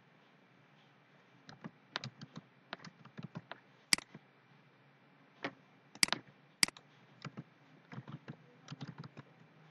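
Computer keyboard and mouse in use: irregular key taps and clicks beginning about a second and a half in, with a few much sharper clicks among them.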